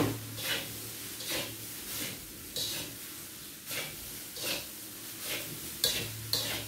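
A spatula scraping and tossing fried rice in a wok, in regular strokes about every two-thirds of a second. The rice is being pressed and broken up so that the lumps are evened out.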